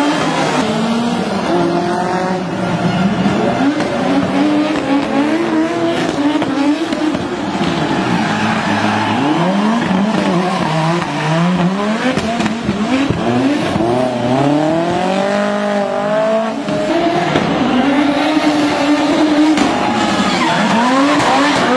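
Audi Sport Quattro S1's turbocharged five-cylinder engine revving hard, its pitch rising and falling again and again as the car is driven sideways. Tyres squeal under the slides.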